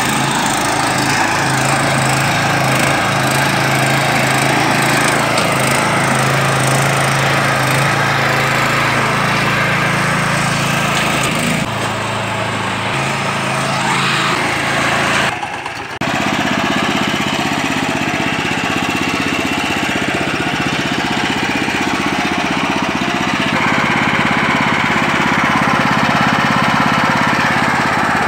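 Small air-cooled single-cylinder petrol engine of a walk-behind mini power tiller running steadily while its rotary tines churn soil. About halfway through the sound dips briefly, then the engine runs on with a changed tone.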